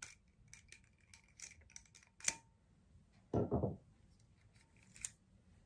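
Pliers gripping and twisting the wire cage on a sparkling-wine bottle's cork, working the twisted wire loose: small scattered metallic clicks, a sharper click a little after two seconds, and a short dull thump just after three seconds.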